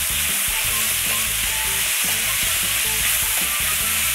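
Boneless chicken feet and vegetables in spicy seasoning sauce sizzling steadily in a non-stick frying pan while being stirred and tossed with a spatula.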